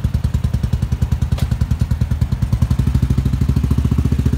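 Vintage motorcycle engine idling with an even pulsing beat; about three seconds in, the beat quickens and grows a little louder as the revs come up.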